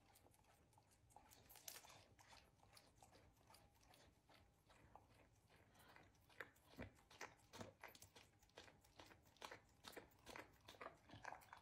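Faint wet licking and mouth clicks of a dog lapping vanilla ice cream from a bowl, in irregular short smacks that come thicker in the second half.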